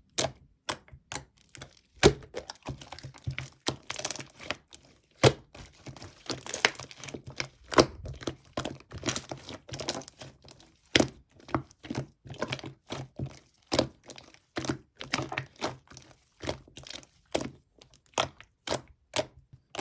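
Slime being squeezed, stretched and poked by hand, giving a steady run of irregular short pops and clicks.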